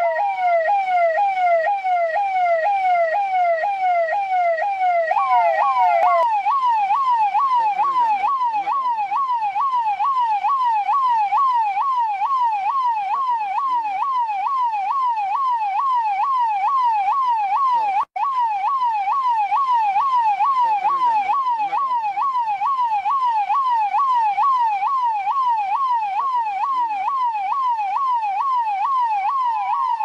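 Indian police electronic siren in a fast yelp, its pitch sweeping up and down about twice a second. About five seconds in the sweep jumps to a higher pitch and carries on. It cuts out for an instant a little past the middle.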